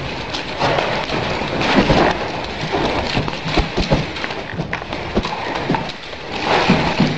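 A pair of nunchaku swung fast, whooshing through the air in repeated swells, with many irregular sharp clacks and knocks.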